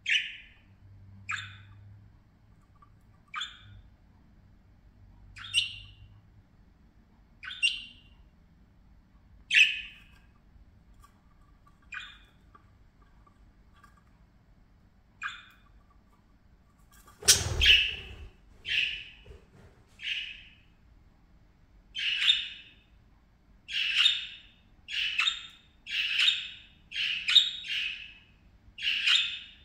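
Budgerigars calling with short, sharp chirps and squawks, at first one every couple of seconds, then coming faster, about once a second. There is a brief thump about halfway through.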